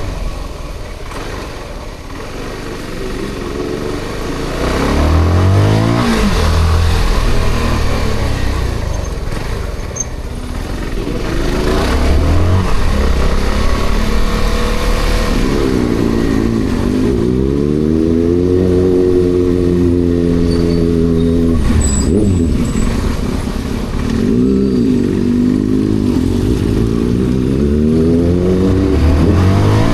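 Kawasaki ZX-6R's inline-four engine under way, revving up and easing off several times, its pitch climbing and falling with each pull.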